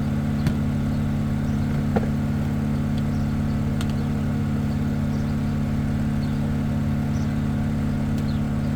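Engine running steadily at idle: an even low hum, with two faint clicks about half a second and two seconds in.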